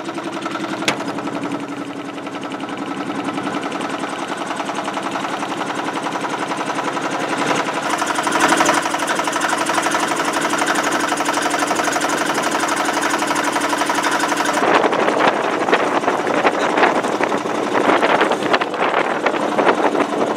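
Boat engine running steadily, a drone with a rapid knocking beat. About three-quarters of the way through the steady hum drops away and a rougher rattle takes over.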